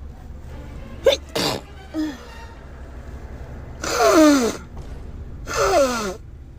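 A woman in a sneezing fit: a couple of short, sharp sounds about a second in, then two loud sneezes about a second and a half apart, the voice falling in pitch through each one.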